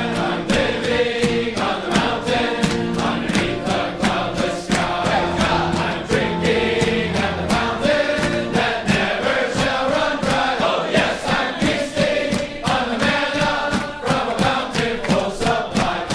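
A choir singing a hymn with accompaniment and a steady pulse.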